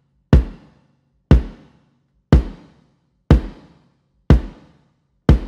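Single kicks on a 16-inch Sonor AQX bass drum with coated Remo Ambassador heads tuned low, six strokes about one a second. Each hit is short and dry and dies away within half a second, because two blankets inside the drum take out its tone and sustain.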